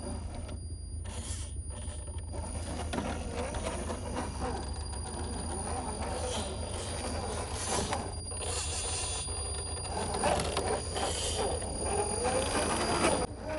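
1/10-scale RC crawler driving off-road: its stock electric motor and gearbox run in stop-start spurts while the tyres scrabble over dirt and rock, over a steady low rumble.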